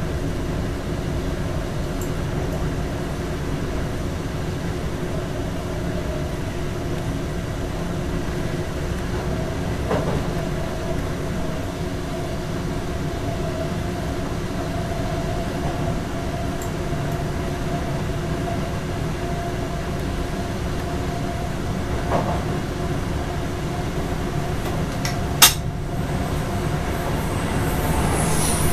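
Dutch NS electric train running along the track, heard from inside the driver's cab: a steady rumble with a steady hum over it. A few isolated clicks come through, the sharpest well past the middle. The sound grows louder near the end as the train enters a tunnel.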